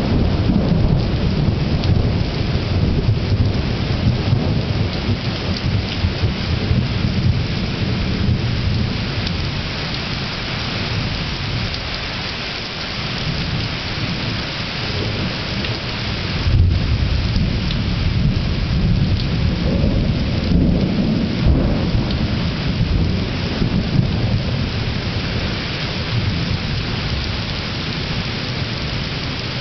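Thunderstorm: steady rain with thunder rumbling continuously, a louder clap of thunder a little past halfway and another swell of rumbling soon after.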